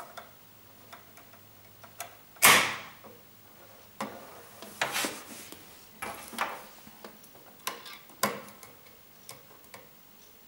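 Wire-mesh live-catch mouse trap springing shut about two and a half seconds in, a sharp metal clack with a short ring. Lighter metal clicks and rattles follow as the spring-loaded door is lifted and set again.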